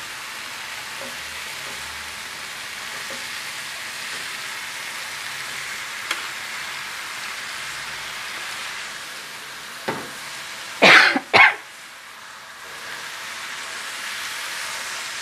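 Onion-and-spice masala sizzling steadily in hot oil in a frying pan as raw bottle gourd chunks are added. Two brief loud bursts come about eleven seconds in, and the sizzle drops for a moment afterwards.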